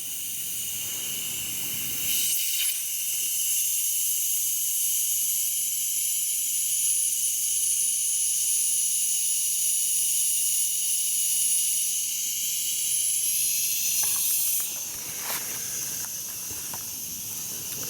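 Steady high hiss of air from the unloader valve of a 1968 DeVilbiss 445 10 hp air compressor, bleeding off pressure after the compressor has cut off. The hiss swells about two seconds in and drops back a few seconds before the end.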